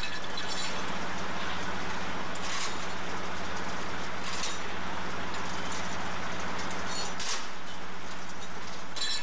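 Steady drone of a ship's engine, with a constant low hum under an even rush of noise.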